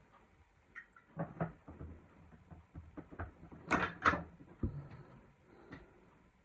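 A series of light clicks and knocks from small hard objects being handled, the two sharpest coming close together about four seconds in.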